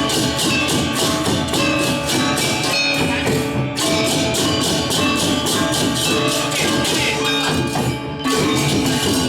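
Balinese gamelan ensemble playing fast: ringing metallophones under rapid, jangling cymbal-like strikes, with two brief breaks in the sound, about four and eight seconds in.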